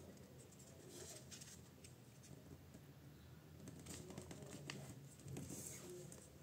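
Faint rustling and creasing of a sheet of A4 printer paper being folded by hand, with a few soft scattered ticks as fingers press the folds flat.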